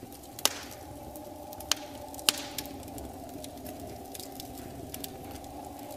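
Fire sound effect: irregular sharp crackling pops, a few louder ones in the first half, over a steady low drone.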